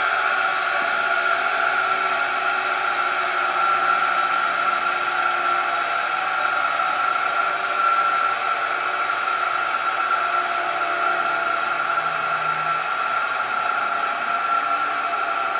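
Milwaukee 1 hp disc sander's electric motor running with no load, a steady whir with a constant high whine.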